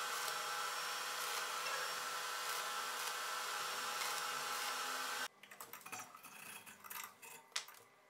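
Stick-welding arc crackling and hissing steadily as the rod welds a bolt onto the ring of a combination wrench; it cuts off suddenly about five seconds in. After that come light metallic clicks and scrapes, with one sharp click near the end.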